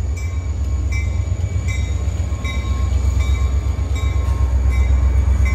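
Diesel freight locomotive of the Florida East Coast Railway passing close by: a steady, loud low engine rumble with the rolling of the wheels. Over it a grade-crossing bell rings in repeated dings.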